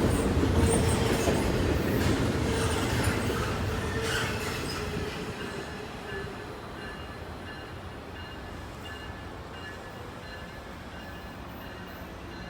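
A train passing on the tracks: loud rumble and rail noise with some high wheel squeal, fading away about five seconds in as it moves off.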